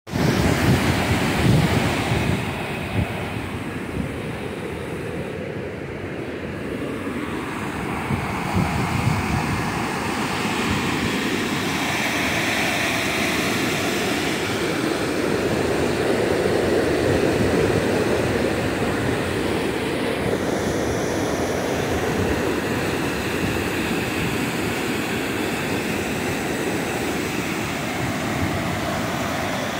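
River water pouring over a low dam's spillway and churning through the rapids below, a steady rushing roar. Wind buffets the microphone at times, loudest in the first couple of seconds.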